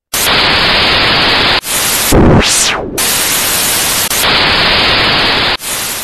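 Loud hissing white-noise static, like a detuned TV, coming in abrupt on-off blocks, with a swooping sweep that falls and rises again about two seconds in: a static-glitch transition sound effect.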